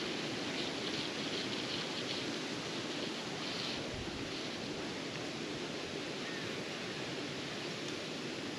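Steady lakeside outdoor ambience: an even, soft hiss of air and water with no distinct events.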